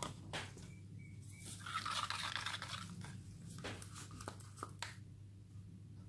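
Quiet handling of plastic resin cups over a plastic drop sheet: a few light clicks and a crinkling rustle about two seconds in, over a steady low hum.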